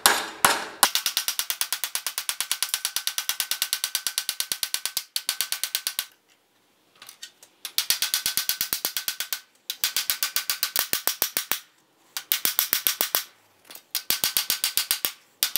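Small hammer rapidly striking a thick steel bracket held over a pipe in a bench vise, metal on metal, to bend a lip over. The blows come fast and even, about ten a second, in runs of a few seconds separated by short pauses.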